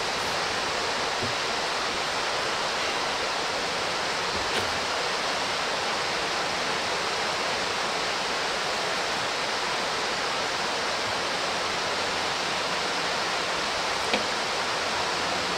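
A steady, even rushing hiss that does not change, with a couple of faint clicks, one about four and a half seconds in and one near the end.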